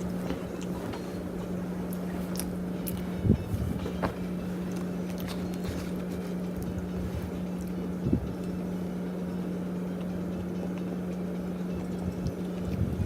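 A steady low hum with a constant tone, broken by two soft thumps about three and eight seconds in, with a few faint clicks.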